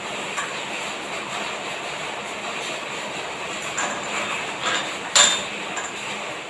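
Lamp-wick twisting machine running steadily, its small motor spinning cotton thread along an aluminium channel, with scattered light clicks and one sharp clink about five seconds in.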